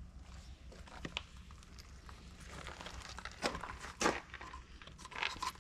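Irregular light clicks, scrapes and rustling of hands handling small engine parts and tools. The sharper clicks come about a second in, around three and a half to four seconds in, and near the end.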